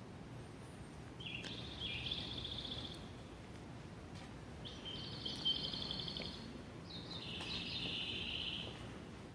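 High bird-like chirping in three near-identical phrases, one about every three seconds, over a low steady hum. The phrases repeat like a loop, as in the recorded bird-chirp guidance sound that Japanese stations play from loudspeakers to lead visually impaired passengers to the stairs.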